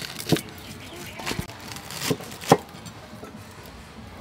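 Knife chopping leafy greens on a cutting board: four separate knocks, the loudest about two and a half seconds in.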